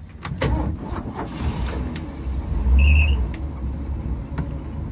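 Engine of a 1990 Grand Craft wooden runabout running with a steady low rumble that swells about three seconds in. Scattered light knocks and a brief high tone come at the swell.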